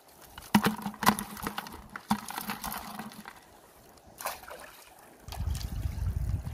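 Crabs being shaken out of a round net crab trap into a plastic bucket: a run of sharp knocks and rattles as they drop in and the trap hits the bucket, with one more knock a little later. Near the end a low rumble comes in.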